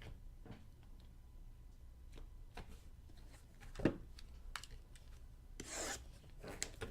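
Trading cards being handled at a table: soft rubbing and light taps, a sharper knock about four seconds in, and a brief scratchy rustle near the end.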